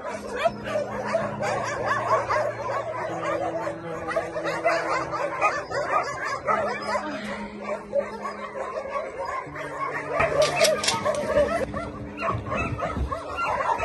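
Many dogs barking and yelping at once in a dense, overlapping chorus.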